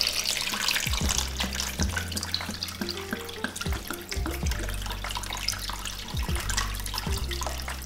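Filtered water pouring from a plastic filter jug into a slow cooker's crock over raw chicken legs, a continuous splashing stream as the pot fills.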